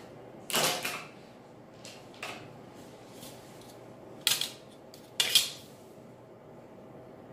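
Plastic drafting rulers knocking and clattering against the table and paper as they are put down and picked up: a few short, sharp clacks, the loudest about half a second in and two more around four and five seconds in.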